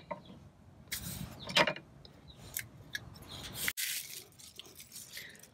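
Scattered short plastic clicks and knocks from handling a plug-in LED license plate light housing and its wiring connectors, a few seconds apart, with a sudden break near the end.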